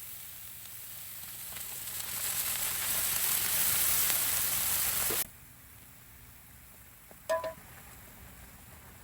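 Beef sizzling in a hot pan, growing louder over the first few seconds and cutting off abruptly about five seconds in.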